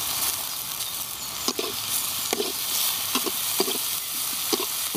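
Chopped onions sizzling in oil in a metal wok, with a steel spatula stirring and scraping the pan in a series of short strokes from about a second and a half in.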